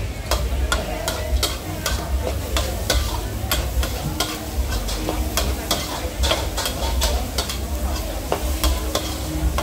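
Metal spatula striking and scraping a wok as food is stir-fried, about two to three clanks a second over the sizzle of frying, with a steady low rumble underneath.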